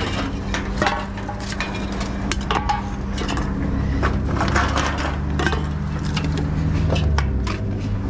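Reverse vending machine for container deposits humming steadily, with empty aluminium cans and plastic bottles clattering against a wire shopping trolley as they are picked out and fed in. The machine's motor runs deeper and louder from about four to seven seconds in.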